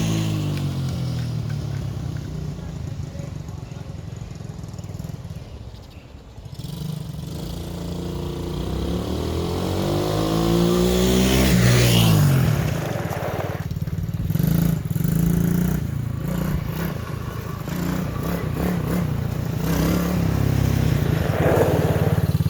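Small Chinese quad bike's engine running as it is ridden: the sound fades to its quietest about 6 seconds in, grows again and peaks about 12 seconds in with the engine pitch rising and then falling, and runs close and steady near the end.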